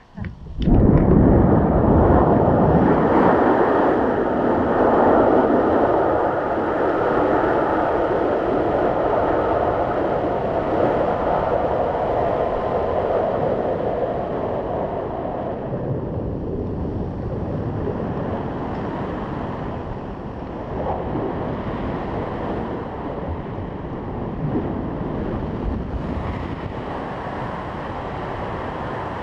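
Wind rushing over a handheld action camera's microphone in paragliding flight: a loud, steady rush that starts suddenly about a second in and eases a little after about fifteen seconds.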